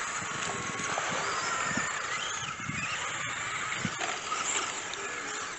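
Several electric RC buggies racing on a dirt track, their motors whining and rising and falling in pitch as they speed up and slow down.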